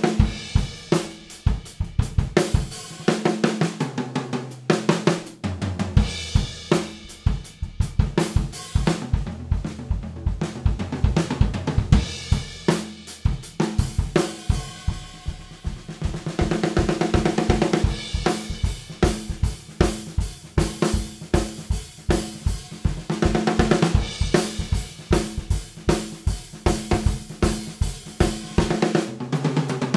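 Acoustic drum kit played continuously: bass drum, snare, hi-hat and cymbal grooves in straight and triplet feels, linked by drum fills (breaks). The most tightly packed fill comes a little past halfway.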